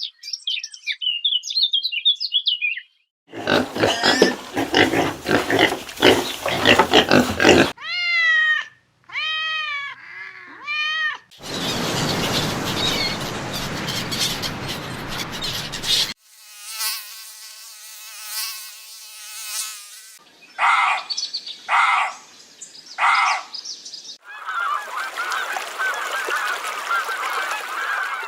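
A series of different animal and bird calls, one short clip after another, changing every few seconds. It opens with high chirping and includes three calls that rise and fall in pitch about eight seconds in, then three short calls a little after twenty seconds.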